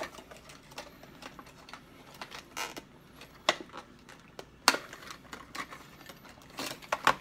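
Clear plastic lure packaging crackling and clicking as it is pried open by hand, with scattered sharp clicks, a few of them louder.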